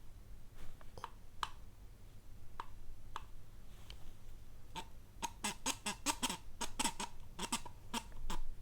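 Light metallic clicks and taps from hand tools and small parts being handled: a few scattered ones at first, then a quick run of them in the last few seconds, each with a brief ringing.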